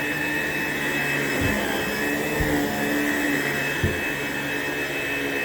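A vacuum cleaner running steadily with a high motor whine while it works along a wall edge. A few brief knocks come through, about one and a half, two and a half and four seconds in.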